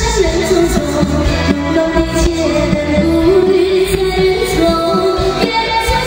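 A female singer sings a Chinese pop song live into a microphone, backed by a live band.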